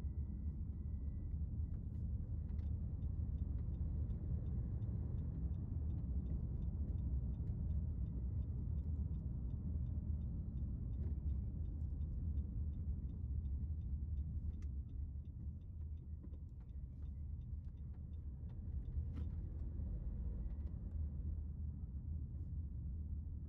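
Steady low rumble of a car's engine and tyres on the road, heard from inside the cabin while driving. The turn-signal indicator ticks evenly from a couple of seconds in until about halfway through, then stops.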